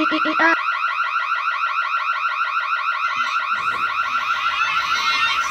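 Electronic alarm sound effect: a high tone sweeping rapidly, about ten times a second, repeating steadily.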